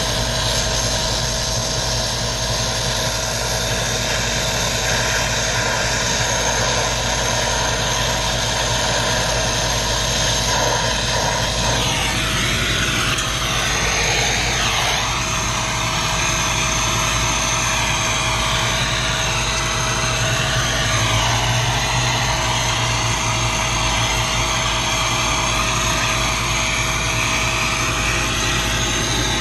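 A machine running steadily with a constant hum, its sound shifting briefly about twelve seconds in.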